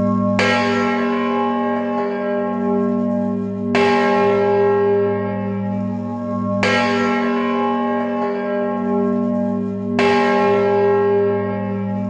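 A large church bell tolling slowly: four strokes about three seconds apart, each ringing out and fading over a sustained low hum.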